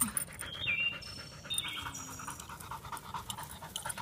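Labrador retriever panting in quick, rhythmic breaths.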